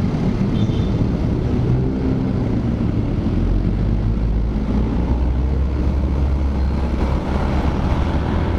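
Honda RS125 Fi motorcycle's single-cylinder engine running while riding, mixed with wind rumble on the helmet-mounted microphone. The low engine drone grows stronger from about three seconds in and eases back near the end.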